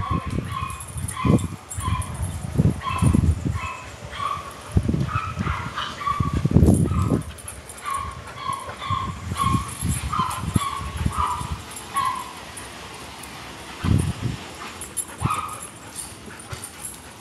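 A small dog yapping over and over: short, high-pitched yips about two a second, stopping about twelve seconds in, with a few more near the end. Low thuds are mixed in.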